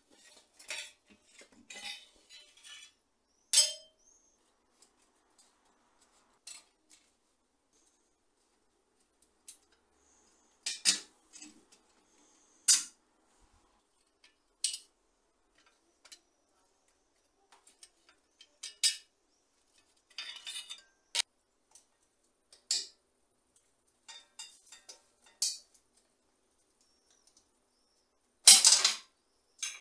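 Metal bicycle parts and hand tools clinking and tapping as the Kama folding bicycle's steel fender stays and fittings are handled and fitted. The clinks come scattered and short, with a louder clatter near the end.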